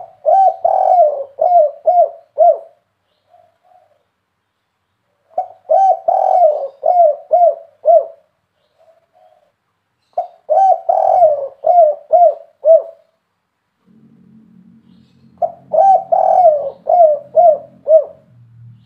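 Spotted dove cooing: four phrases about five seconds apart, each a run of five or six deep coos that get shorter toward the end. This is the song pattern Indonesian dove keepers call 'kuk 3'.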